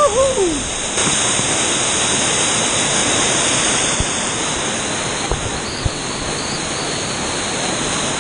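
Loud, steady rushing of a swollen mountain river's waterfalls and chutes, heard close to the water. A brief call rises and falls at the very start, and a few dull knocks come about two thirds through.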